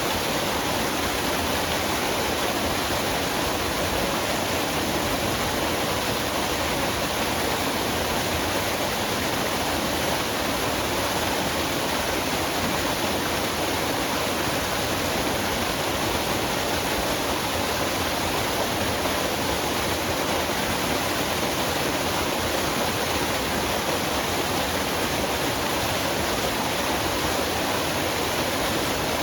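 Waterfall in a forest, water falling and splashing in a steady, unbroken rush.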